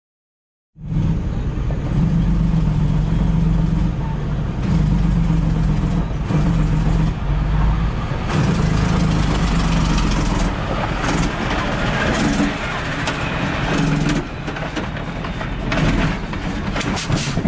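Engine and road rumble heard inside a van on a rough dirt road while a large truck passes close alongside, with irregular rattles and knocks in the second half. The sound starts suddenly about a second in.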